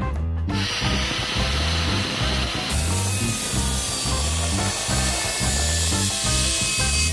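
Electric angle grinder cutting into a flat steel bar, a harsh steady grinding noise that starts about half a second in and turns brighter and hissier near the three-second mark.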